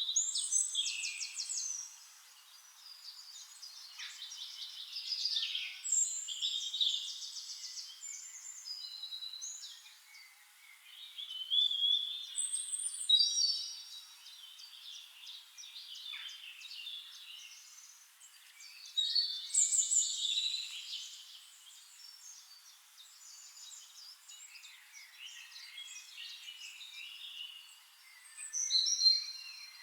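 Forest songbirds singing: bursts of rapid trills and whistled phrases every few seconds, with quieter chirping in the gaps.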